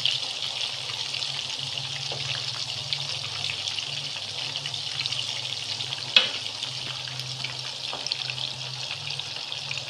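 Masala-coated fish steaks frying in hot oil in a frying pan: a steady sizzling hiss with fine crackling as the first side cooks. A single sharp tap about six seconds in, over a steady low hum.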